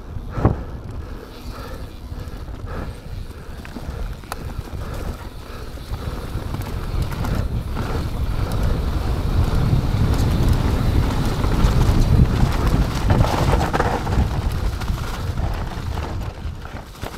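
Mountain bike rolling down a dirt trail, with wind buffeting the microphone. The rush builds from about six seconds in as speed picks up, then eases near the end; a single knock from the bike sounds about half a second in.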